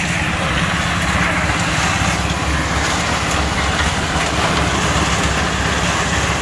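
Portable concrete mixer running steadily, its engine humming and its drum churning a batch of cement mix.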